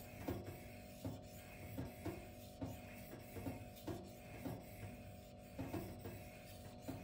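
Steel knife blade stroked back and forth across a sharpening waterstone, a soft rasp about twice a second, over quiet background music.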